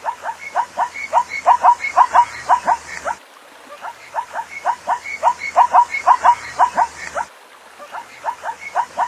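Zebra barking call: bouts of quick short barks, several a second, each bout lasting about three seconds with a pause of under a second between, two full bouts and a third starting near the end.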